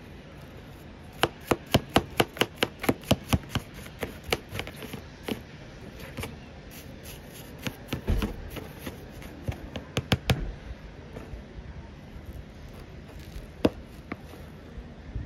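A small hand tool clicking and knocking in a cactus planter as a plant is dug out: a quick run of about five sharp clicks a second, then scattered taps and a dull thump.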